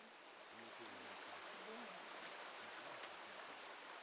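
Faint, steady rush of a stream running over rocks, with quiet voices talking underneath.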